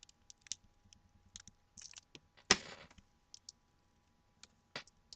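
Scattered small clicks and crackles of plastic and adhesive tape as the old laptop screen panel is handled and the tape is peeled off its display cable, with one louder knock about two and a half seconds in.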